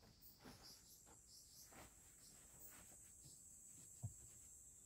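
Near silence: a faint, steady high-pitched insect trill, with a soft low thump about four seconds in.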